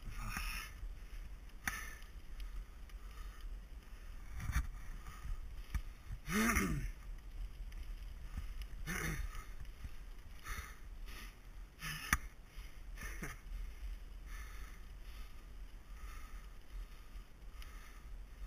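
Mountain bike riding a gravel forest singletrack: a steady low rumble of tyres and wind on the camera mic, with the rider's hard breaths every second or two and one voiced grunt about six seconds in. A sharp clunk from the bike comes about twelve seconds in.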